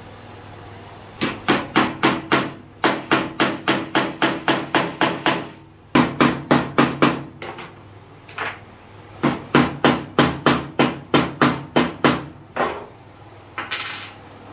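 Hammer tapping in quick runs of sharp strikes, about four or five a second, each with a short ringing note, broken by brief pauses and a few single taps.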